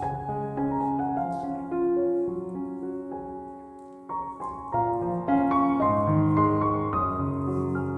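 Background piano music: slow, soft notes and chords.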